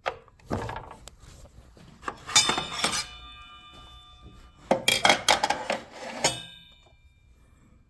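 Metal clinking and clattering in two spells, each leaving a ringing tone that dies away: a metal square being handled and set against the miter saw's blade and fence while checking for square.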